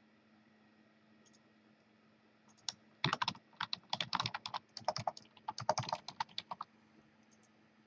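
Typing on a computer keyboard: a single click about two and a half seconds in, then a quick run of keystrokes lasting about three and a half seconds, over a faint steady hum.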